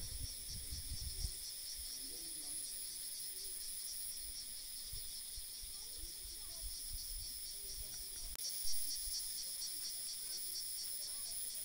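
A steady, high-pitched chorus of insects chirring, with low rumbles on the microphone in the first second or so.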